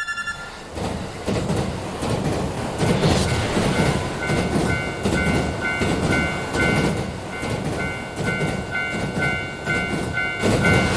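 Train running past with a rhythmic clickety-clack of wheels over the rail joints. From about three seconds in, a Japanese level-crossing bell rings a steady 'kan-kan' about twice a second.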